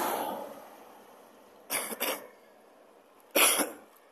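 A passing car's road noise fading away in the first second, then a person coughing close to the microphone: two quick coughs about two seconds in and a louder single cough near the end.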